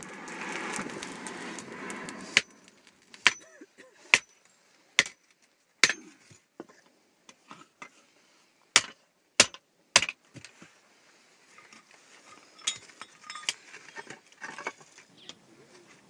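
A short rushing noise, then a blacksmith's hammer striking iron: single sharp metallic blows at uneven intervals, three of the loudest close together about nine to ten seconds in, giving way to lighter taps and clinks near the end.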